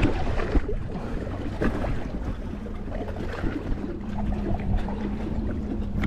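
Wind rumbling on the microphone aboard an inflatable boat at sea, with a few light knocks. A steady low hum comes in about four seconds in.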